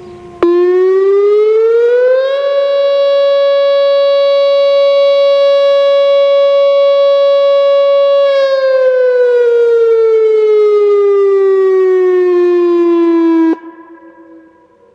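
Whelen WPS-2905 electronic outdoor warning siren sounding its short alert as a test. About half a second in, a loud tone comes in and rises over a couple of seconds, holds at one pitch for about six seconds, then slides slowly back down and cuts off abruptly about a second before the end.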